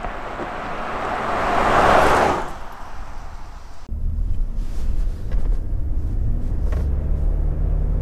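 A 2020 Ford F-150 with a 2.7-litre twin-turbo V6 drives past at road speed, a rush of noise that swells to its loudest about two seconds in and then fades. About four seconds in the sound switches to the steady low rumble of the moving truck.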